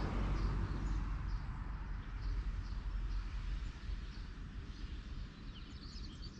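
Outdoor ambience with small birds chirping repeatedly over a steady low rumble. A swell of rushing noise near the start fades away over the first couple of seconds.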